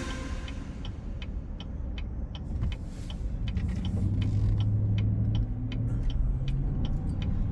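Car driving along the road, heard from inside: a low steady rumble with a regular ticking, about two or three ticks a second.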